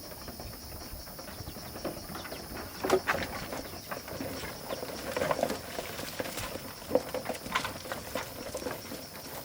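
Goats moving about on a farm: scattered short knocks and brief animal sounds over a steady high-pitched hum.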